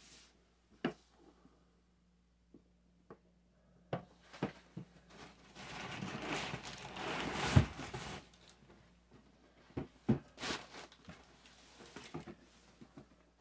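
Cardboard boxes being handled on a wooden table: scattered knocks and scrapes, then a longer rustling and scraping inside a shipping carton around the middle, with a thump near the peak, as a boxed item is pulled out, followed by more knocks as that box is set down and handled.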